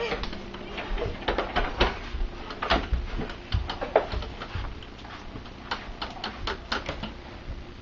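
Small red toy wagon carrying a child, pushed across wooden floorboards: its wheels and frame clatter in an irregular run of clicks and knocks, with a few louder bumps.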